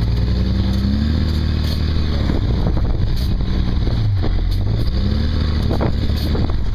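Fire truck engine running under load as the driver tries to pull it out of deep snow, its pitch rising and falling a few times as it is revved and eased off.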